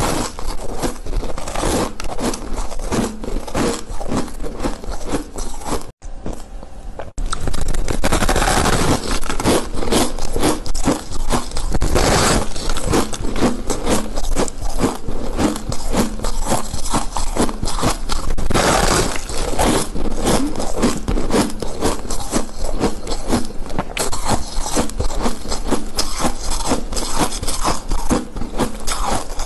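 Close-up crunching of a slab of soft, snowy ice as it is bitten and chewed: a dense run of rapid, irregular crunches, with a break of about a second about six seconds in.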